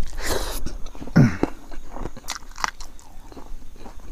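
Close-miked chewing of a mouthful of rice and pickle eaten by hand, with wet mouth clicks and lip smacks. A short hum comes about a second in.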